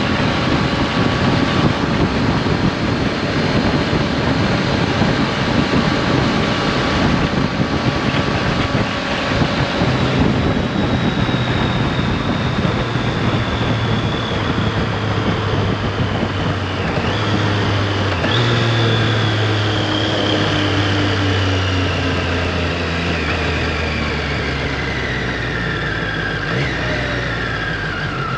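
Wind rushing over the microphone at speed, then a Triumph Street Triple RS's 765 cc three-cylinder engine running down on closed throttle as the bike slows almost to a stop. Its pitch falls steadily, stepping back up twice a little past the middle, as on downshifts.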